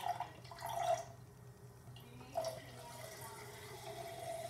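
Juice squeezed from an upturned juice box, trickling steadily into a glass partly filled with ginger ale. The trickle sets in about three seconds in, just after a short knock.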